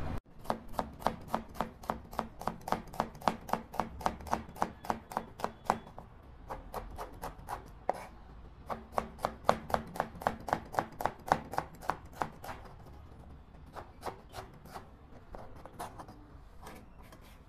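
Chef's knife chopping a red onion on a plastic cutting board: quick, even knocks of the blade on the board, about four a second, in two runs with a pause of about two seconds between them, then slower, scattered cuts toward the end.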